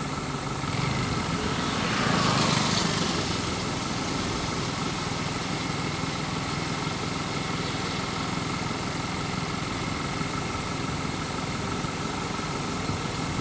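Small motorcycle engine passing close by, loudest about two seconds in, then fading as the bike rides away. A steady background hum continues underneath.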